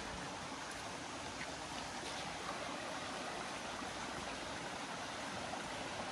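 Steady hiss of flowing stream water.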